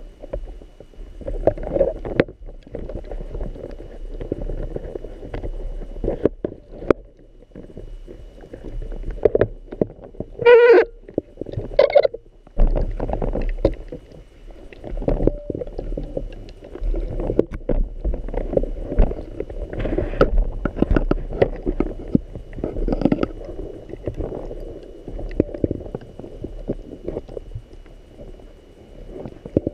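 Muffled underwater noise heard through a GoPro housing: a rumbling wash with bubbling and frequent knocks of dive gear against the camera mount, and two louder warbling gurgles about ten and twelve seconds in.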